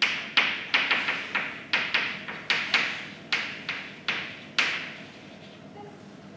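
Chalk writing on a blackboard: a quick, uneven run of sharp taps as the chalk strikes the board, stopping about four and a half seconds in.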